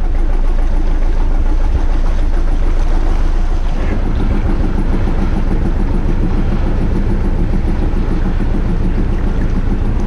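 Canal boat's engine running steadily under way, with a constant rush of noise over it.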